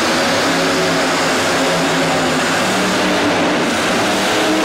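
Mini pulling tractor's engine running flat out under load as it drags the weight-transfer sled, a loud, steady, nearly constant pitch.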